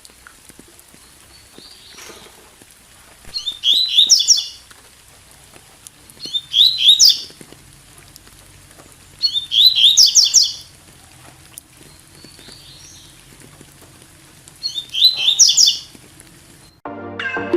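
Double-collared seedeater (coleiro tui tui) singing four short, fast phrases of rapidly repeated high notes, each about a second long, over a faint steady rain hiss. Electronic music starts at the very end.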